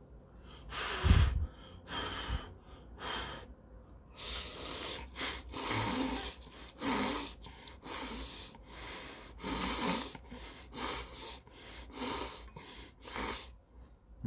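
A man slurping ramen noodles: three separate slurps, then a quick run of about a dozen more short slurps.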